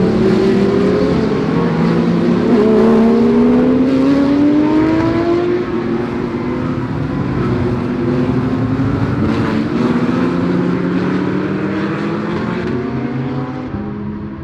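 GT3 race car engines accelerating hard, their pitch climbing steadily with an upshift about five and a half seconds in, more than one car running together.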